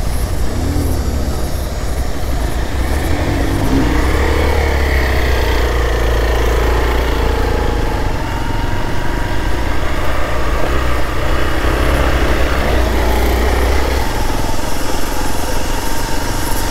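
Motorcycle engine running on a dirt trail ride, its note wavering up and down with the throttle; the deep low drone eases about fourteen seconds in.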